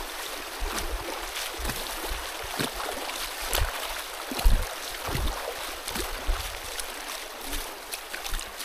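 Walking outdoors with a handheld phone: a steady rushing hiss with irregular soft low thumps and a few short clicks.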